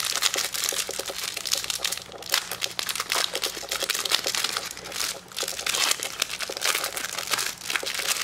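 Thin plastic wrap crinkling and tearing as it is peeled off a stack of trading cards, in quick irregular crackles that keep up throughout.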